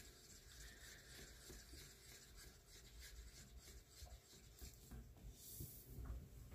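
Faint rubbing and scraping of a stir stick against the inside of a small cup as epoxy resin is mixed slowly. A brief rustle follows about five and a half seconds in.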